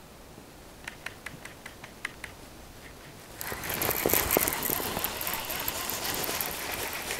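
Fishing reel: a run of scattered ticks, then from about three and a half seconds in a louder, steady mechanical whir of the reel's gears as the line is wound in quickly.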